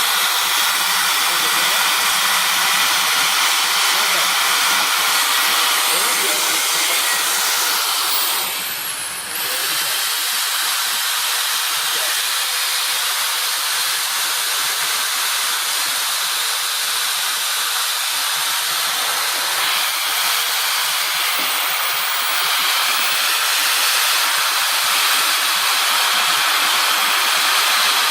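Loud, steady hiss of compressed air blowing from an air gun, cleaning engine parts. It eases for a moment about 8 seconds in, then carries on.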